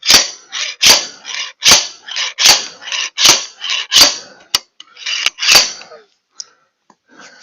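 Improvised slide hammer being worked against a log splitter's hydraulic cylinder ram: a steady rhythm of sharp metal clanks, a heavy blow a little more than once a second with a lighter clank between, stopping about six seconds in. The ram is resisting the pull, which the owner suspects is hydro-locking, since he can hear it sucking air.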